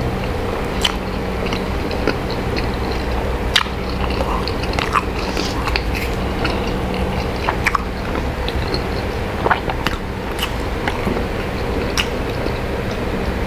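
Close-miked chewing and biting of a fried chicken burger, with wet mouth clicks and crackles scattered throughout, over a steady low hum.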